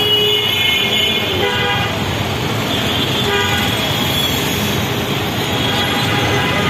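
Steady din of busy street traffic, with short horn toots sounding over it, one about a second and a half in and another a little past the three-second mark.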